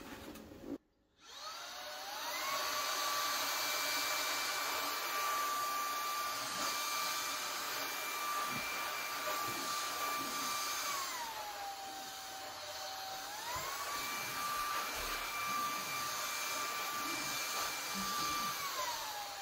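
Shark Cordless Pet Plus stick vacuum motor starting about a second in and running with a steady high whine. Its pitch drops about halfway through, climbs back a couple of seconds later, and drops again near the end.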